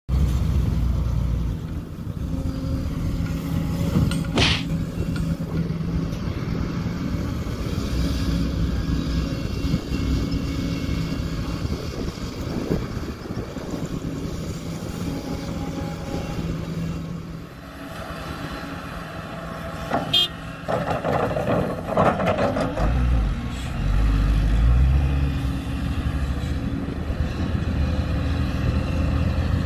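Kobelco SK140 hydraulic excavator's diesel engine running steadily while it loads soil into a dump truck. A sharp clank comes about four seconds in, and a burst of clatter about twenty seconds in. Near the end the loaded dump truck's diesel engine grows louder as it pulls away.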